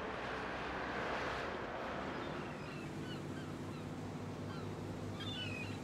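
Waterfront ambience: a steady rush of noise, and from about two seconds in many short bird calls over a low steady hum.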